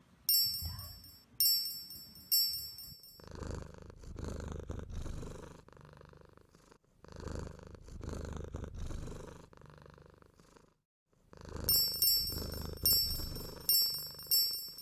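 Bright chime-like dings, three near the start and four near the end, with a low, rough animal-like sound in between that swells and fades about every second and a half.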